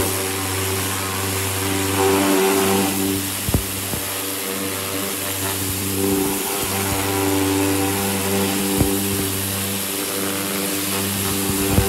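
Pressure washer running steadily, its jet hissing as it strips paint loosened by an alkaline paint-removal bath off a steel car fender. A steady machine hum sits under the spray, with a few sharp ticks.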